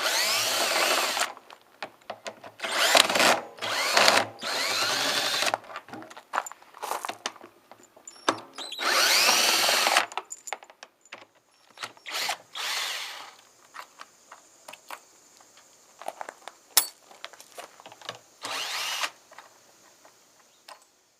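Power drill backing out the screws that hold a washing machine's tub housing together: several bursts of about a second each, the motor's whine rising as it spins up, with small clicks and rattles between them.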